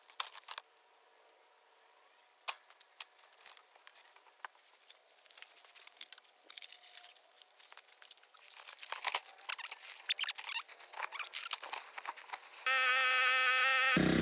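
Dry tall grass rustling and crunching as someone wades through it handling trash, in scattered crackles that grow denser. About a second before the end a power tool's motor starts and runs with a steady hum and a wavering whine.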